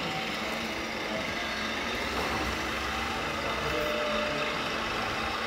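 Radio-controlled scale trucks' electronic sound units playing a diesel lorry engine idling, a steady hum over the background noise of the hall.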